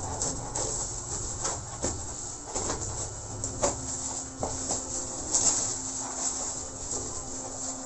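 Bubble-wrapped package being handled and unwrapped: crinkling plastic with scattered clicks and taps. A steady low hum comes in about three and a half seconds in.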